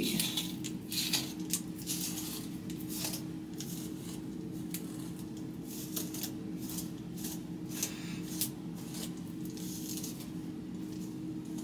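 Wide-tooth comb and fingers working through long, wet curly hair coated in conditioner. The strokes come as a series of short, quick sounds, densest in the first few seconds and again near the end, over a steady low hum.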